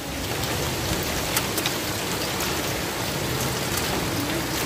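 Heavy rain with hail drumming on tin roofs: a steady hiss with scattered sharp ticks of hailstones striking.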